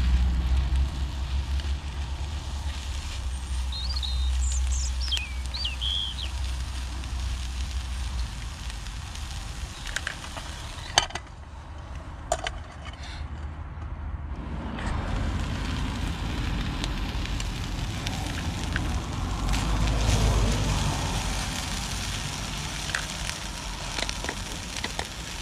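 Bacon and black pudding sizzling in a hinged sandwich-toaster pan on a gas camping stove, over a low rumble. About eleven seconds in there are sharp metal clacks as the pan is shut, and the sizzle goes muffled for a few seconds before it rises again.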